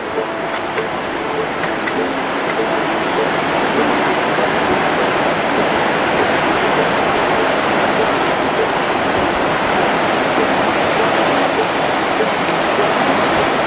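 Creek water rushing steadily over rocks in a shallow riffle, a constant even wash.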